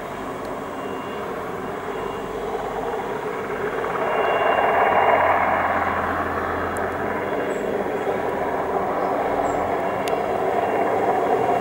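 Light turbine helicopter with an open lattice tail boom flying low overhead, its rotor and turbine running steadily and growing louder about four seconds in.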